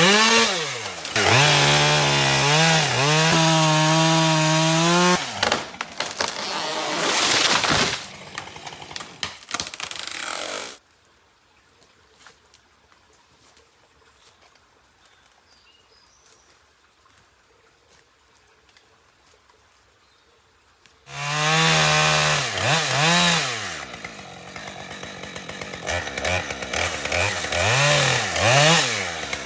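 Husqvarna 550XP two-stroke chainsaw revving up and down and cutting wood, its pitch rising and falling with throttle and load. About a third of the way in it stops, and about 10 s of near silence follow before the saw runs and revs again.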